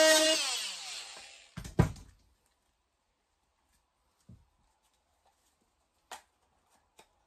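Corded DeWalt oscillating multi-tool cutting a ridge off a white plastic pipe fitting, switched off just after the start, its whine sliding down in pitch as the motor spins down over about a second. Two sharp knocks follow as the tool is set down on the plywood, then a few faint clicks from the plastic fitting being handled.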